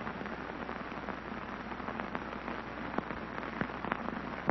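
Steady hiss with scattered clicks and pops, the surface noise of an old film soundtrack, with no music or voice.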